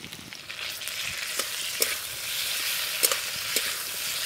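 Potato and brinjal pieces sizzling in hot mustard oil in a metal karahi as cumin paste is stirred in, with a metal spatula clicking against the pan a few times.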